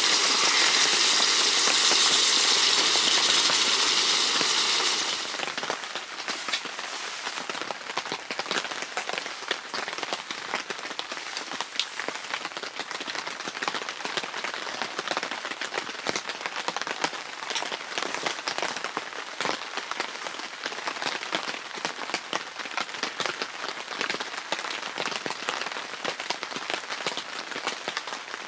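Pork belly and kimchi sizzling on a hot griddle pan: a loud, steady hiss for about five seconds, then falling suddenly to a quieter, dense crackling.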